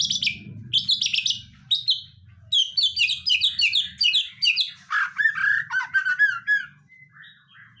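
White-rumped shama (murai batu) singing a fast, varied song of rapid high chirps and trills. Past halfway it switches to lower, fuller whistled notes, and it stops near the end.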